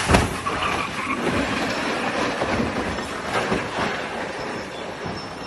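A sharp bang right at the start, then a steady rumbling vehicle noise with a few knocks a little past the middle.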